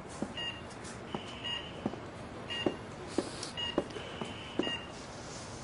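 Hospital patient monitor beeping: short, high electronic beeps repeating roughly once a second, with a few soft footsteps across the floor.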